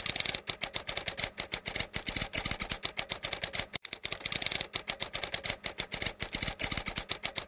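Typewriter sound effect: rapid, uneven key clicks, roughly eight a second, with a brief pause about four seconds in.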